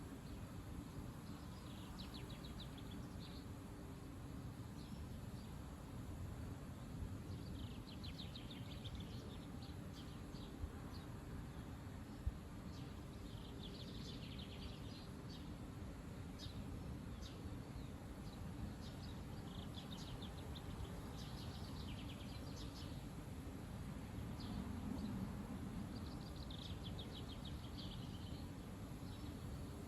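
Wind rumbling on the microphone as a steady low noise, with a small bird chirping in quick trills every few seconds above it. A couple of brief clicks stand out.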